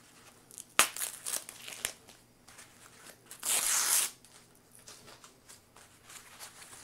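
Blue tape being pulled and peeled off foam packing, with crackles and rustling, a sharp snap about a second in, and one louder tearing rip of the tape about midway.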